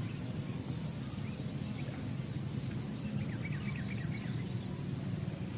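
Steady low outdoor rumble, with a quick run of faint bird chirps about three seconds in.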